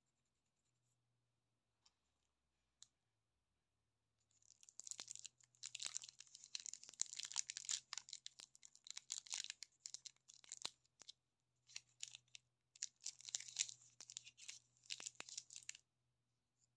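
Clear cellophane wrapper on a large lollipop crinkling and rustling as fingers handle it, in two long stretches of close crackling with a short pause between them.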